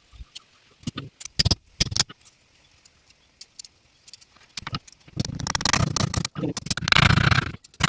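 Sharp metallic clicks and clinks, then a few seconds of harsh scraping from hand work on a steel knife, broken briefly about six seconds in.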